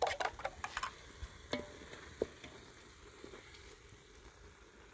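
A metal spoon scrapes and clinks against a metal bowl as beaten eggs are tipped into a hot saucepan of greens, with a couple of sharper clinks a second or two in. Under this, a soft steady sizzle of the food cooking and the stirring in the pot.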